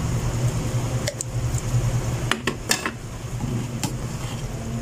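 Metal slotted turner stirring soup in a metal cooking pot, clinking against the pot: two clicks about a second in, a quick run of four around two and a half seconds, and one more near the end, over a steady low hum.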